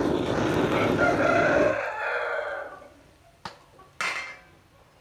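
Blowtorch flame burning with a steady rushing noise that cuts off suddenly about two seconds in, followed by two sharp clicks.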